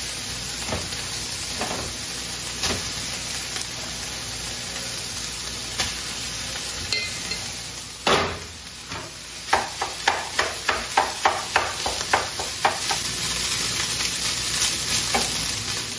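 Ground beef and peppers sizzling in a frying pan on a gas stove. About halfway, rice goes in with a knock, then a spoon clacks against the pan in quick strokes, about three a second, as the mixture is stirred.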